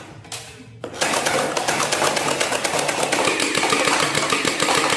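Toy machine gun firing a continuous rapid-fire rattle of fast clicks, starting about a second in and stopping near the end.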